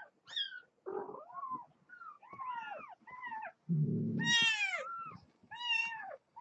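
Young kittens mewing over and over, a run of short high-pitched mews that each fall in pitch. About four seconds in, a low rough sound comes just before the loudest, longest mew.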